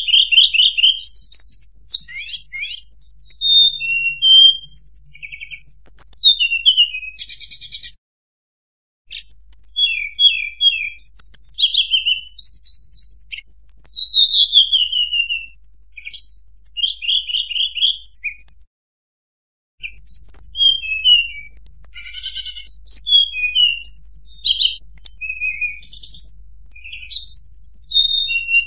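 Recorded lure song of a tledekan gunung, a blue flycatcher: rapid, varied high chirps, slurs and trills in quick phrases. The song cuts out briefly twice.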